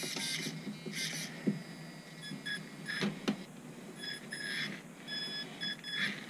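LaTrax Rally 1/18-scale RC car's electric drive motor and drivetrain run in short bursts under radio throttle on the bench, as a check after reassembly. First a whirring rush, then several short pulses of steady high motor whine, with a couple of sharp clicks about three seconds in.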